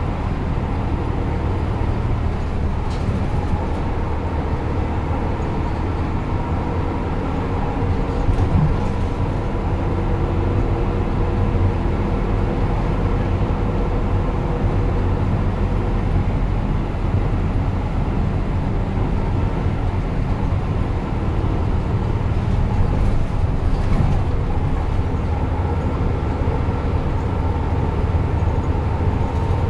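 Route bus heard from a passenger seat inside the cabin: a steady engine drone with level whining tones over it, running without a break, with a few faint rattles.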